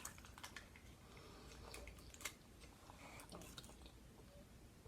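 Faint chewing and mouth clicks from someone eating, with scattered soft ticks.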